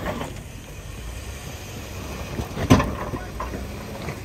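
Jeep Wrangler crawling slowly over rocks: a low engine rumble with wind on the microphone, and one sharp knock nearly three seconds in as the rig works over the stones.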